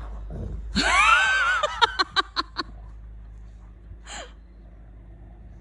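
Squeaky dog toy squeezed in a retriever's jaws: one long wavering squeak about a second in, then a quick run of five or six short squeaks, and one more short squeak past the middle.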